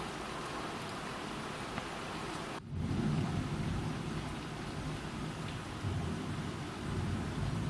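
Steady rain hiss from a thunderstorm; about two and a half seconds in, after a brief dropout, a low rumble of thunder comes in over the rain and rolls on, swelling again near the end.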